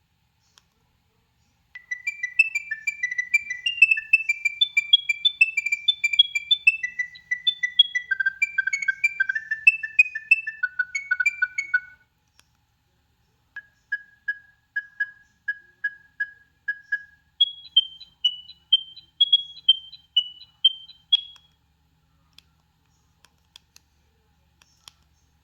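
Nokia 6610 mobile phone playing its preloaded ringtones through its small speaker: a fast melody of short, high beeping notes stops, then after a short pause a single note repeats about twice a second before turning into a short, higher tune.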